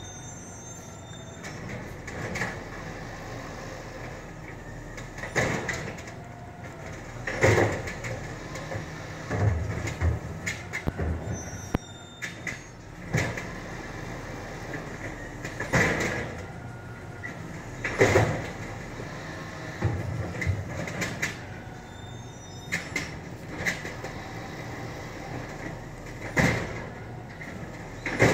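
Garbage truck running with a series of loud metal bangs and clanks, several about two seconds apart, and a few brief high squeals.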